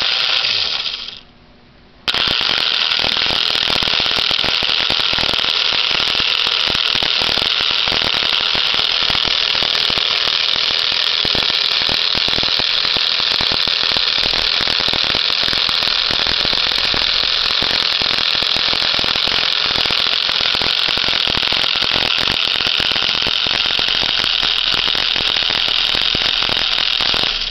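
Postwar Lionel 6110 toy steam locomotive's electric motor and gears running, a loud steady whir with rapid clicking. It drops out about a second in and starts again a second later.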